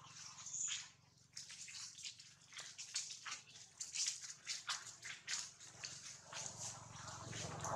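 Dry fallen leaves crackling and rustling underfoot as a monkey walks over them, in many short, irregular crackles.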